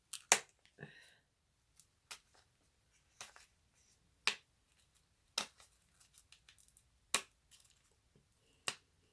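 Hands picking and pulling at stiff plastic packaging to get it open, giving a series of sharp crackling snaps and clicks about once a second, with a quick run of small ticks a little after the middle.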